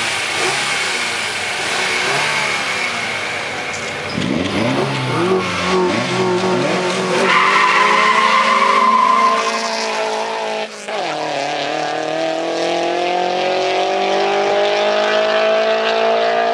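Two cars launching side by side from a standing start in a drag race: engines held at high revs, then climbing steeply in pitch as they pull away about four seconds in. Near eleven seconds the pitch drops briefly at a gear change and climbs again as they accelerate down the road.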